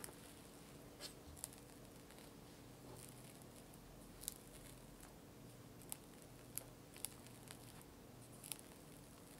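Metal offset palette knife spreading whipped cream over a sponge cake sheet: faint soft scrapes and a few light clicks as the blade touches down and smooths the cream, about eight in all, spaced irregularly.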